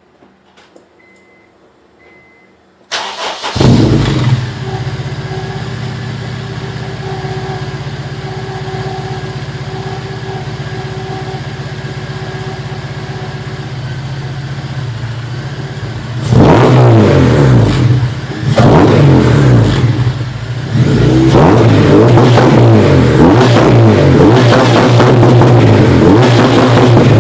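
K24A2-swapped Honda Civic Si (EP3) exhaust through a DC race header, Borla mid pipe and Spoon N1 muffler: the engine cranks and starts about three seconds in with a brief flare, then idles steadily. It is blipped twice around the middle, then revved up and down repeatedly toward the end.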